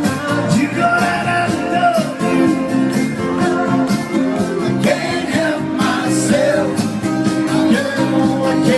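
Loud party music with a singing voice, guitar and a steady beat, played over the boat's sound system.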